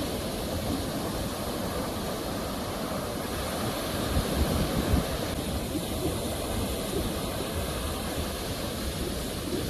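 Sea waves washing on a shore, a steady rush of surf that swells a little louder about halfway through.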